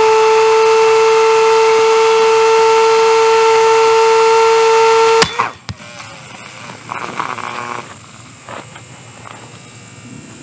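Hair dryer running with a loud, steady whine over the rush of air, then cutting off suddenly with a sharp click about five seconds in. Quieter scattered knocks and rustling follow.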